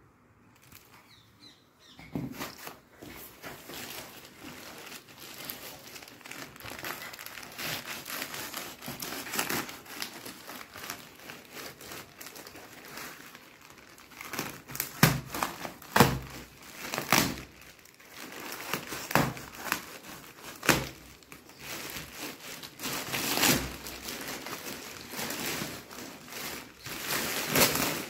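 Plastic courier mailer bag crinkling and tearing as it is ripped open and a cardboard box is pulled out of it, starting about two seconds in, with several louder sharp rips and rustles.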